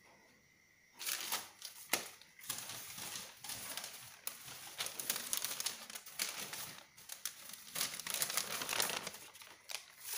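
Sheets of paper pattern being handled and shifted on a cutting table, crinkling and rustling with small crackles, starting about a second in.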